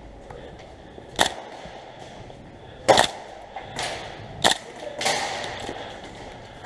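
Airsoft guns firing single shots: about five sharp cracks, spaced roughly a second apart.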